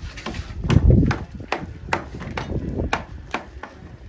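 Bricklaying tools knocking on brick: a run of sharp taps, two or three a second, with one heavier low thud about a second in.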